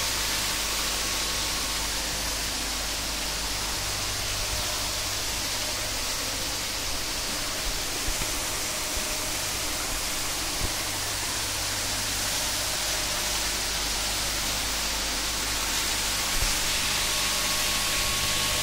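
Aeration bubbling from air stones in biofloc tanks, fed by a Resun LP-200 air pump: a steady, even hiss of churning, foaming water, with a low steady hum underneath.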